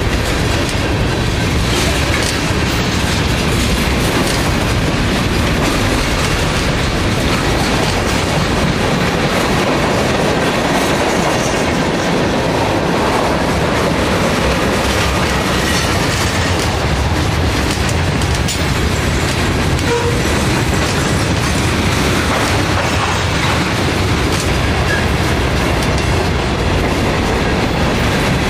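Freight train rolling past at close range, a string of tank cars, covered hoppers and boxcars, their steel wheels rumbling and clattering steadily on the rails.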